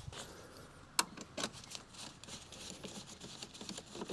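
Small clicks and taps of plastic engine-bay trim and a hand tool being handled and fitted, with one sharp click about a second in and a lighter one just after.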